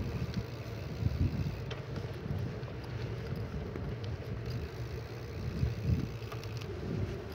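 Wind buffeting the microphone of a handheld camera on a moving bicycle: a steady low rumble that swells and dips in gusts, with a louder bump of handling near six seconds.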